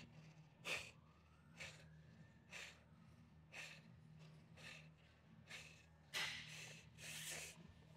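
A lifter's hard, sharp breaths, about one a second, while working through a rest-pause set, with a longer, louder breath near the end. A faint steady low hum runs underneath.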